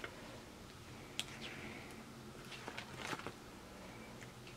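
Faint rustling and soft clicks of plastic binder sleeves as pages of photocards are handled and turned, loudest about three seconds in.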